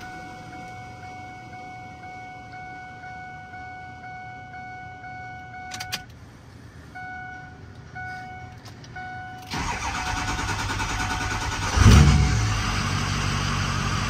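2005 Ford F-250's 6.0 Power Stroke V8 diesel cranking hot from about 9.5 s in, firing about two seconds later and settling into a steady idle. It is a hot restart after the injection pressure regulator (IPR) valve was replaced, and the engine no longer has its crank-no-start-hot fault.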